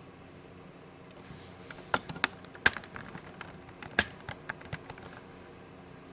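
Small hard parts of a removed ignition lock cylinder clicking and tapping as they are handled: a quick run of sharp clicks, two of them louder, about two to five seconds in.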